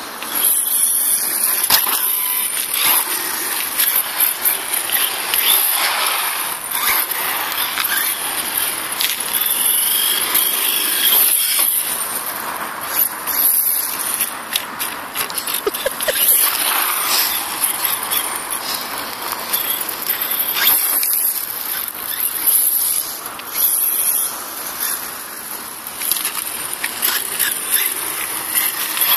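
HSP Brontosaurus Pro electric RC monster truck driving, its motor and gears making a high-pitched whine that swells and fades with the throttle, over a steady hiss of outdoor noise.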